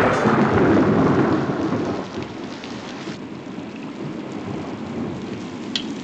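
A thunderclap rolling and fading away over the first two seconds, then steady rain.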